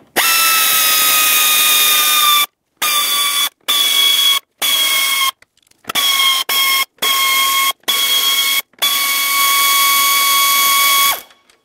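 Power ratchet with a 5.5 mm socket spinning out the small screws along the front radiator support cover: about nine runs of a steady motor whine, each lasting roughly half a second to two seconds, with short pauses between them. The longest run comes near the end.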